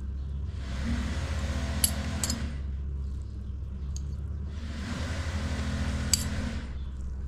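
Metal forks clinking sharply a few times against a metal tray and pot while spaghetti is lifted and layered into the pot, with two stretches of soft rustling noise over a steady low hum.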